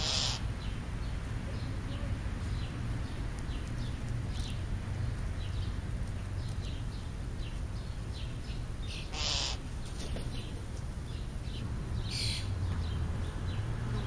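Birds calling at a feeding spot where crows feed: faint short chirps throughout over a low steady rumble, with three brief noisy bursts, near the start, about nine seconds in and about twelve seconds in.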